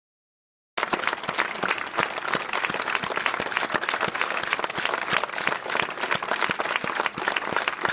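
Crowd applauding: dense, steady clapping that starts abruptly about a second in, after silence.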